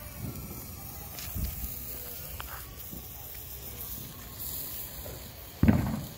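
A lit ground firework hissing and sputtering on the pavement as it burns, with a sudden loud thump about five and a half seconds in.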